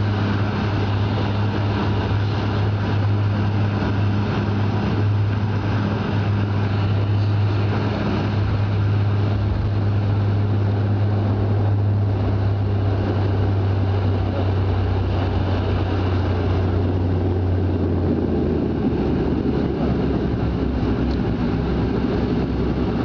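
Airliner engines droning steadily, heard from inside the passenger cabin along with airflow noise. About eighteen seconds in, the steady low hum drops away and a rougher rumble takes over.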